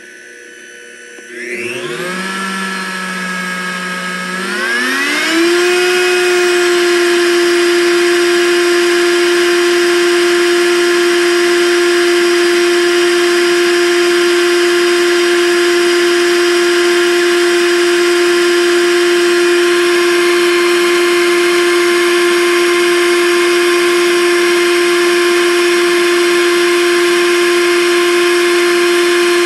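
Blendtec Designer 625 blender motor running with no jar on the base during a timed program. It starts about a second and a half in, holds a lower speed for a few seconds, then rises to full speed and runs steadily with a high whine.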